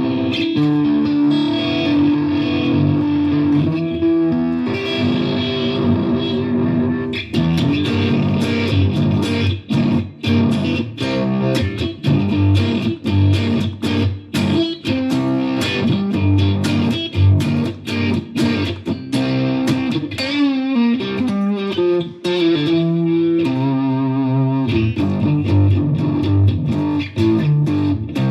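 Electric guitar (a Stratocaster) played through a Fender Mustang GTX100 modelling amp on one of its effects presets: picked notes and chords with some distortion and a sweeping modulation effect, most plainly heard in the second half.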